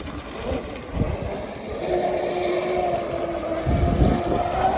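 Brushless electric motor of a Traxxas M41 6S RC catamaran boat running with a steady whine that settles on one pitch about two seconds in. Low thumps come about a second in and again near the end.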